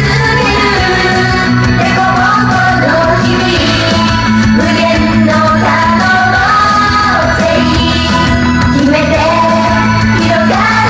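Japanese idol-pop song performed live: a group of young women singing in unison into microphones over a loud pop backing track played through a PA system.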